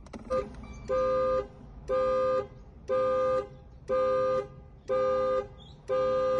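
Car horn sounding in regular half-second honks, about one a second, six in a row.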